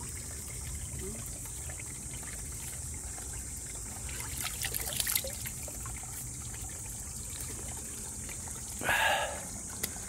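Mountain stream trickling steadily over rocks, with a few faint knocks about four to five seconds in and a brief louder rush of noise near the end.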